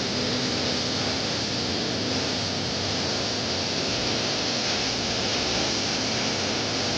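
Steady rush of flowing water from a spring.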